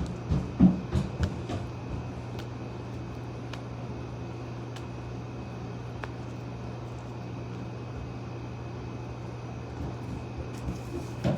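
A steady low hum under a cluster of short knocks and handling sounds in the first two seconds as slime is worked by hand, then a few faint clicks.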